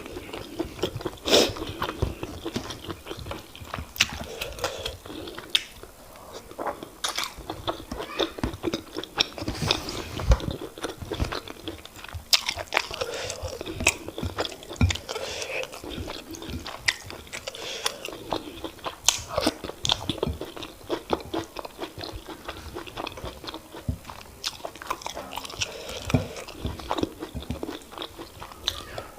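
Close-miked eating sounds: a person chewing and swallowing semolina fufu with oha soup, with wet mouth smacks and many irregular short clicks.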